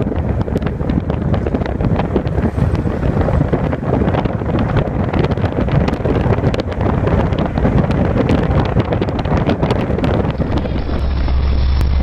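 Wind buffeting a microphone: a loud, gusty rumble with frequent crackles. Near the end it gives way to a duller, steady low rumble.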